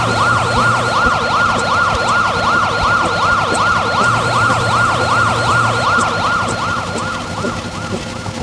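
Siren sound effect in a fast yelp, its pitch sweeping up and down about three times a second, fading somewhat near the end.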